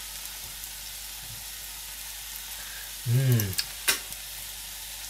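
Vegetables frying gently in a pan, a steady soft sizzle. About three seconds in comes a brief vocal sound, the loudest moment, followed by a click.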